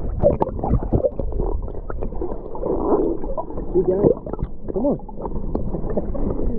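Water sloshing and gurgling heard through an underwater camera microphone, with knocks against the housing, as a speckled trout is held and moved in the water to revive it. There is a short muffled rise-and-fall in pitch about three-quarters of the way through.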